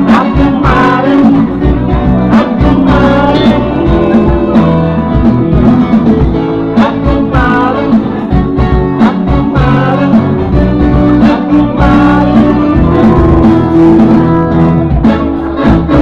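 A live band plays loudly: a guitar and a drum kit, with a man singing into a microphone.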